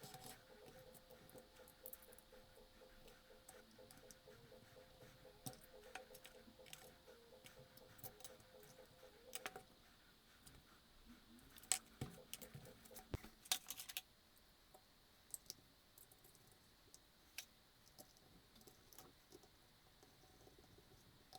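Scattered small metallic clicks and taps as tools and parts are handled on a chainsaw during clutch removal and oil-pump work. The loudest knocks come in a cluster a little past halfway. A faint steady hum runs under the first half and stops.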